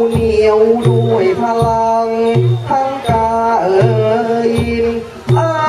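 Thai piphat ensemble music accompanying khon dance drama: low drum strokes about every three-quarters of a second under a steady held drone and a wavering, bending melodic line.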